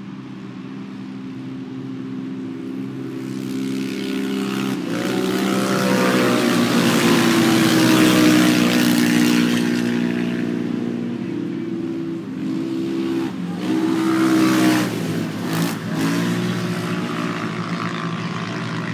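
Engines of 570-class UTVs racing, with revs rising and falling. The sound swells to its loudest about eight seconds in as a machine passes close, then eases off.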